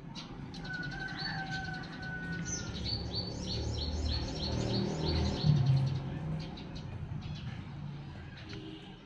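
A songbird singing a quick run of about ten short, high, falling chirps, roughly three a second, for a few seconds, over low rumbling noise that swells midway.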